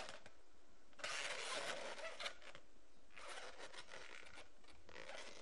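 Inflated 260 latex balloons of a twisted balloon sculpture rubbing against each other and the hands as it is handled, in three short spells.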